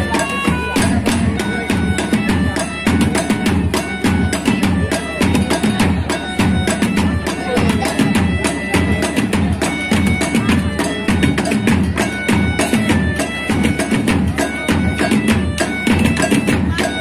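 Patrol sahur percussion music: fast, dense drum strikes and sharp knocks, with a melody of short held notes stepping up and down over them.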